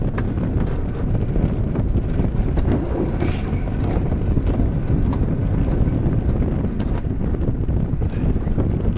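Wind buffeting the microphone over the steady rumble of an alpine coaster sled running at speed along its tubular steel rails.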